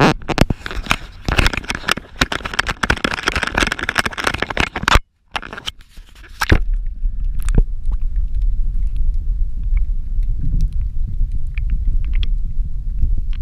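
Close crackling and scraping of an action camera being handled and splashed at the water's surface. From about six and a half seconds in, the camera is submerged and the sound turns into a steady, muffled underwater rumble with a few faint clicks.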